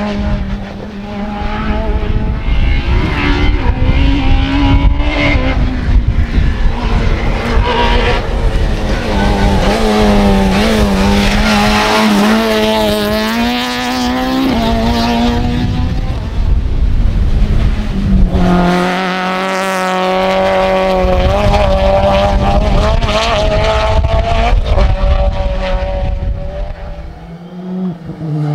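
Rally cars driven hard on a tarmac special stage, one car after another: engines revving high, the note rising and dropping with gear changes and throttle lifts.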